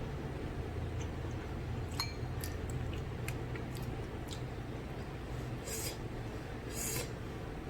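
Eating noodles: a few light clicks of a utensil against a plate, then two short hissing slurps, over a steady low hum.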